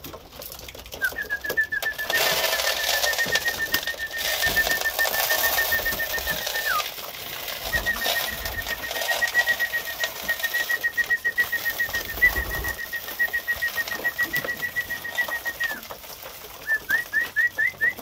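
A trilled whistle held on one pitch for about five seconds, dipping at its end, then again for about eight seconds, with a few short rising chirps near the end: a fancier's call-whistle bringing pigeons in to feed. Pigeons' wing flaps and cooing underneath.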